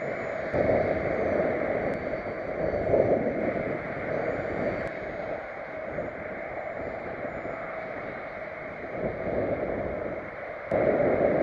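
Wind buffeting the microphone: a rushing noise that swells and dips in gusts, jumping louder near the end.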